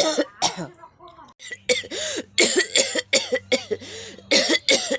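A person coughing over and over: a cough right at the start, a short lull, then from about a second and a half in a quick string of short, throaty coughs, several a second.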